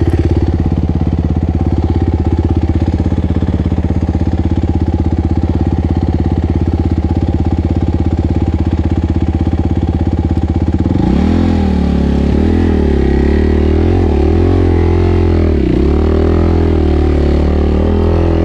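Suzuki RMX450Z single-cylinder four-stroke dirt bike engine running at a steady low speed, then, about two-thirds of the way through, the throttle is worked on and off so the revs rise and fall repeatedly as the bike crawls up a steep rocky climb.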